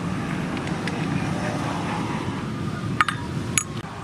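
Two sharp metallic clinks about half a second apart near the end, from a hand tool knocking against the metal blade and mount of a brush cutter's head, over a steady low background rumble.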